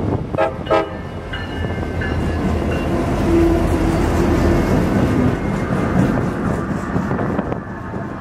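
CSX diesel freight locomotives passing close by, their engines rumbling loudest about three to five seconds in. Freight cars follow, rolling past on the rails near the end.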